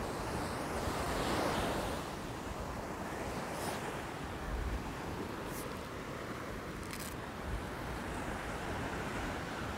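Surf breaking on the beach with wind buffeting the microphone: a steady rushing noise, swelling briefly about a second in, with a few brief high ticks in the second half.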